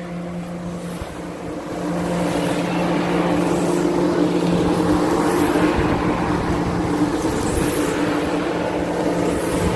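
The electric blower fan of an inflatable air dancer runs with a steady hum, mixed with rushing wind noise that grows louder about two seconds in.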